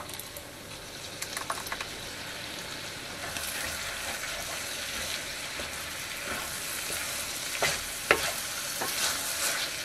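Orzo and vegetables sizzling in a frying pan as tomato is stirred in with a wooden spoon; the sizzle thickens a few seconds in. Now and then the spoon knocks against the pan.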